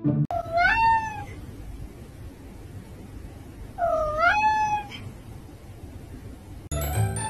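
A domestic cat meowing twice, each meow about a second long with a bend in its pitch, odd enough to seem unlike a real meow.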